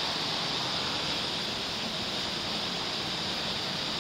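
Steady rushing of running water, a constant hiss with no breaks or changes.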